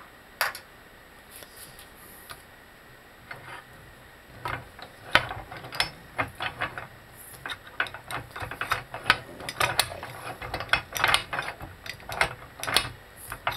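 Metal clicking and clatter of tools and the control arm being readjusted in a bushing press, a few isolated clicks at first, then quick irregular ratchet-like clicks from about four and a half seconds in.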